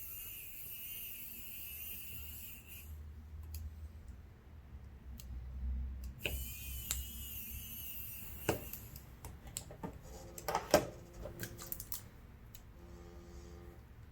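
Electric precision screwdriver whirring in two bursts of a few seconds each, driving the small screws that hold the phone's camera down, followed by light clicks of tools and small parts being handled.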